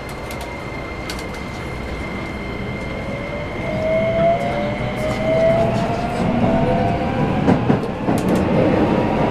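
Keikyu New 1000 series (1890 sub-series) electric train heard from inside the car while accelerating. The Toyo hybrid SiC VVVF inverter and traction motors give whining tones that rise in pitch over the rumble of the wheels and grow louder from a few seconds in.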